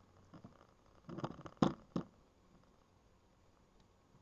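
Small screwdriver and small parts clicking and tapping on an airsoft 1911 pistol frame as it is put back together, a few sharp clicks and light knocks bunched together about a second in.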